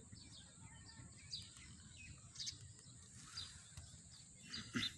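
Faint, scattered short bird chirps, a few separate calls spread over the seconds, the last and loudest near the end.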